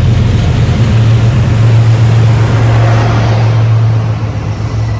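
Diesel locomotive of an arriving passenger train passing close by: a loud, steady low engine drone over the rumble of the train, easing a little near the end.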